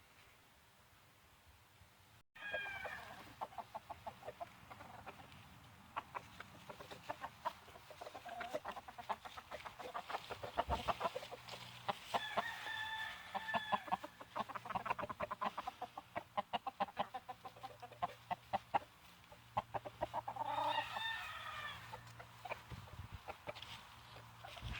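Roosters crowing twice, each crow held for about two seconds, over a steady run of short clucks and clicks from a flock of chickens. The first couple of seconds are nearly quiet before the farm sound starts abruptly.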